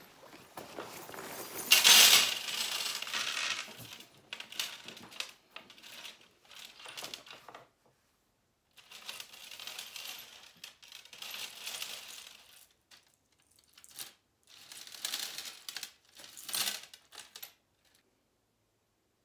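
Keys and small metal chains clattering onto a glass tabletop. The loudest spill comes about two seconds in, followed by several shorter bursts of jingling as the pieces are handled and sorted.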